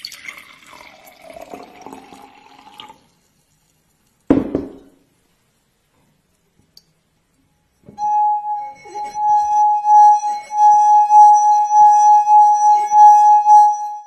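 Water poured from a glass jug into a stemmed beer glass, its pitch rising as the glass fills. A single knock follows about four seconds in. From about eight seconds in, a wet fingertip rubbed round the rim of the part-filled glass makes it sing a loud, steady ringing tone.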